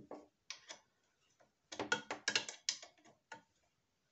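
Box-end wrench clicking on a gearbox drain plug as the plug is tightened: scattered sharp metallic clicks, with a quick run of them about two seconds in.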